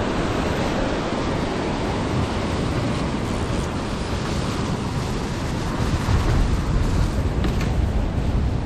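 Surf breaking and washing over the boulders of a rocky shoreline, a steady rushing noise with wind on the microphone. The low rumble swells louder about six seconds in.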